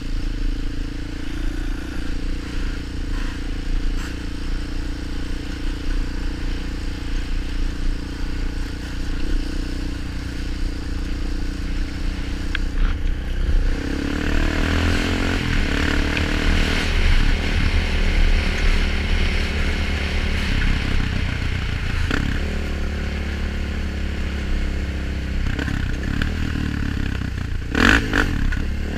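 Honda 400EX quad's four-stroke single-cylinder engine running under riding load, heard from the rider's helmet, with wind and rattling over rough ground. It holds steady at low revs for about the first half, then revs harder and louder.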